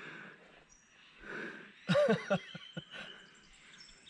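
A man's short wordless vocal outburst, like an exclamation or laugh, about two seconds in, falling in pitch. Faint rapid chirping is heard near the end.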